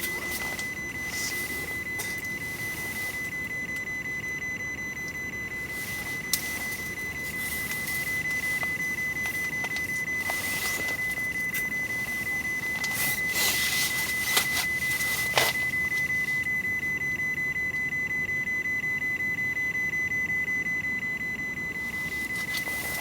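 A steady high-pitched electronic tone that never changes pitch, with a few sharp clicks and short bursts of hiss over it.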